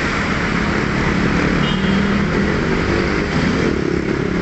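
Road traffic: a motor vehicle engine running close by over general traffic noise. Its low tone rises in pitch about three seconds in.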